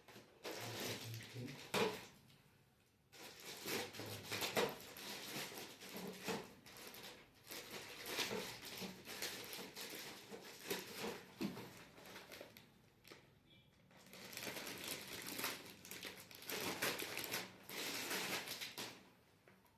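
Crinkling and rustling of packaging and plastic parts being handled, in irregular bursts with short pauses and a few light knocks.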